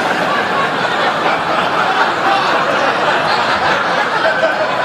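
Sitcom studio audience laughing, loud and steady, in reaction to a punchline.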